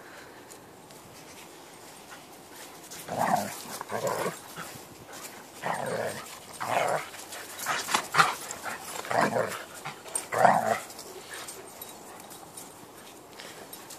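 Dogs in rough play giving a series of about eight short, gruff growls and barks, between about three and eleven seconds in.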